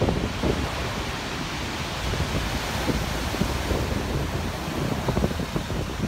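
Storm surf breaking and washing over a rocky shore, a steady heavy rush of water, with strong wind buffeting the microphone in gusty low rumbles.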